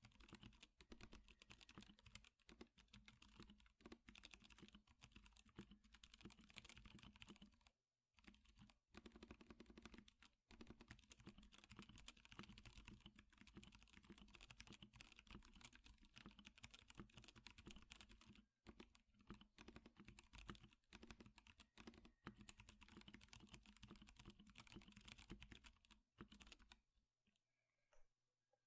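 Fast, continuous typing on a Melody96 mechanical keyboard with lubed 78g Zealios tactile switches and PBT keycaps. There are brief pauses a few times, and the typing stops shortly before the end.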